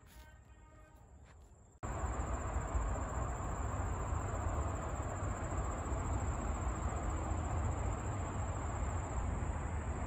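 Outdoor ambience: a steady low rumbling noise that cuts in suddenly about two seconds in, with a continuous high-pitched insect drone over it.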